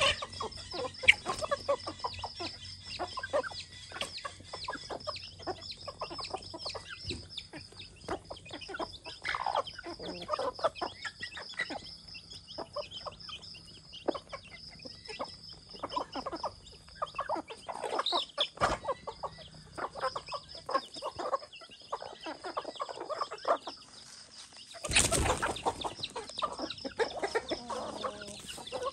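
A flock of chickens clucking and calling, many short calls in quick succession, over a steady high-pitched whine. About 25 seconds in, a loud rushing burst lasts about a second.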